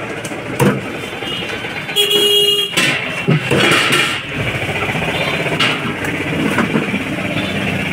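Street traffic noise, with a vehicle horn honking once for under a second about two seconds in, and a few sharp knocks.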